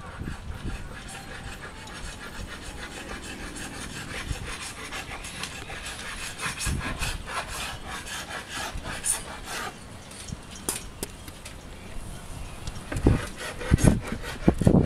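Sandpaper rubbing over a boat's hull in quick, repeated rasping strokes, with no motor sound. A few louder knocks near the end.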